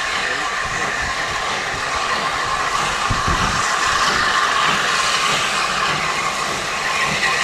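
Steam train running, a steady rushing noise with a brief low thump about three seconds in.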